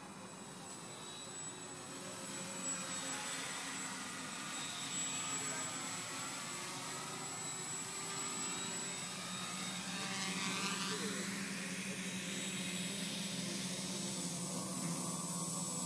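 Homemade tricopter's electric motors and propellers whirring in flight, growing steadily louder as it comes in low and close.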